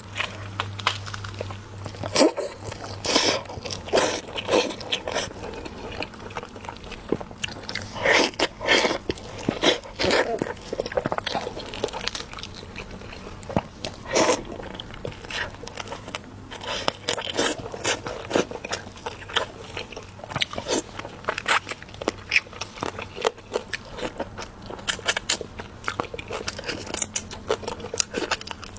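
Person eating close to the microphone: irregular crunchy bites and crackles, with chewing in between.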